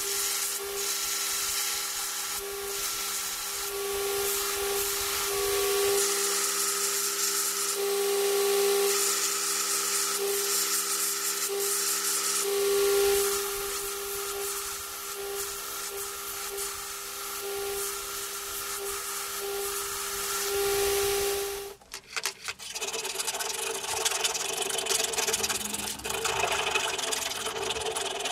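An electric power tool running steadily with a rasping, grinding sound as it works the piece. About 22 seconds in it stops briefly, then a coarser grinding sound takes over.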